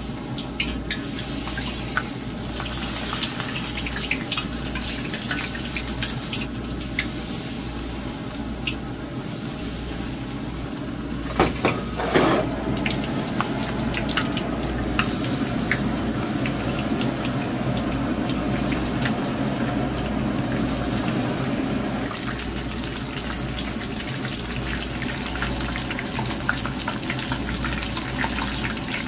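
Battered smelt deep-frying in a wok of hot oil: steady sizzling with fine crackles as the ice-chilled batter fries. A few louder knocks about halfway through.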